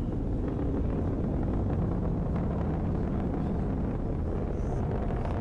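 Falcon 9 Block 5 rocket's nine Merlin 1D engines in full thrust during ascent: a steady low rumble with some crackle.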